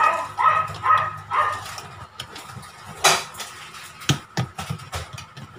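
A dog barks about four short times in the first second and a half. Then a wire whisk clanks against a stainless steel mixing bowl as cake batter is whisked by hand, with one sharp loud hit about three seconds in and a run of knocks near the end.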